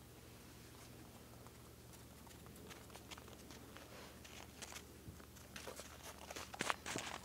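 Scattered small clicks and crinkling, like something being handled or crumpled, growing busier and louder near the end, over a steady low hum.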